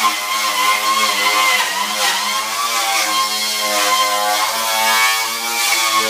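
A handheld power tool's motor running continuously, its pitch dipping and rising slightly as it takes load.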